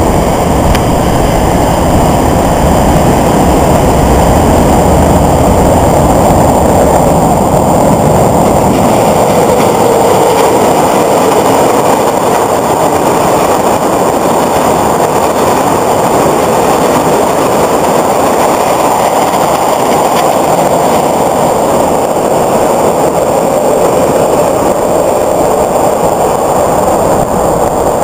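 A Chicago CTA Red Line rapid transit train passing at speed on the express track, a loud, steady noise of wheels on rails with no speech.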